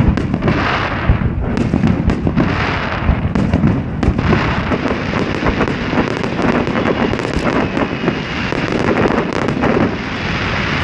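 Harbour fireworks display going off: a continuous run of sharp bangs and crackling bursts.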